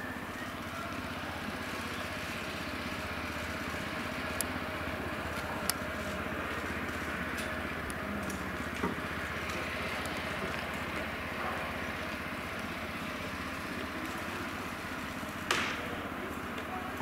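Steady outdoor background noise with a few faint sharp pops, and one loud sharp pop about fifteen and a half seconds in: a pitched baseball smacking into a catcher's mitt.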